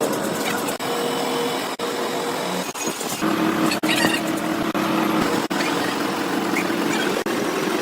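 Heavy workshop machinery running with a steady mechanical drone; a low hum grows stronger a little after three seconds in.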